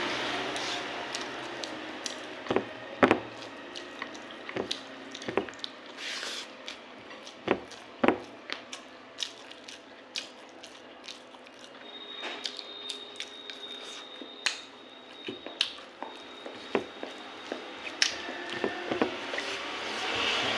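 Close-miked eating sounds: irregular wet mouth clicks and smacks of chewing, with soft squishing of moist food.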